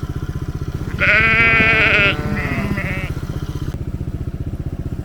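ATV engine running with a fast, steady putter. About a second in, a loud wavering high cry cuts in for about a second, followed by a shorter, quieter one.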